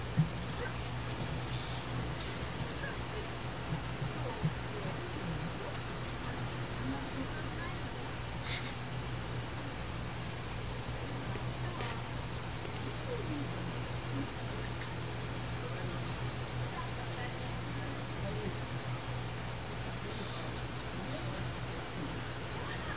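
Insect chirping: a continuous, finely pulsing high trill over a low steady hum, with a few faint clicks.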